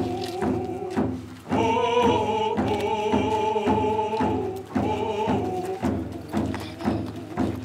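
Voices singing a ceremonial chant over a steady hand-drum beat, about three beats a second. There is a brief break in the singing about a second and a half in.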